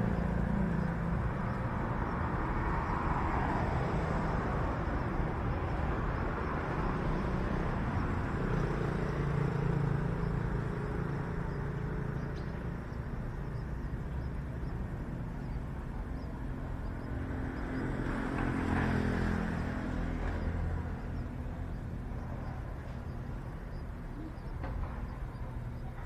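Road traffic: a steady low rumble with vehicles passing, swelling and fading a few seconds in and again about two-thirds of the way through.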